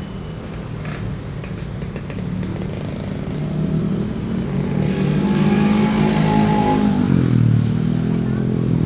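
Engine noise from something passing close by, growing louder for several seconds, then its pitch drops about seven seconds in as it goes past.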